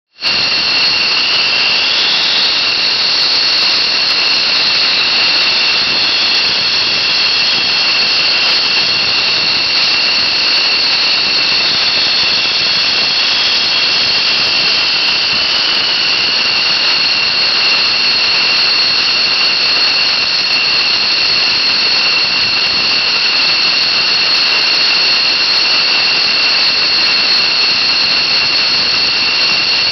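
F-16 Fighting Falcon's jet engine running steadily and loud: a constant rushing noise with a high, unchanging two-note whine.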